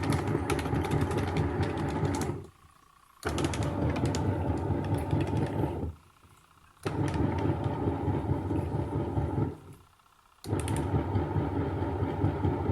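Small bucket-type washing machine running its wash, the motor and pulsator churning in spells of about three seconds, each starting suddenly and then dying away in a short pause before the next, as the pulsator alternates direction.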